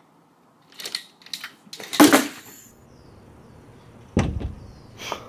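Cats knocking against glass doors: a few light taps about a second in, a loud rattling bang at two seconds, and a heavy, dull thump just after four seconds as a cat's body hits the pane.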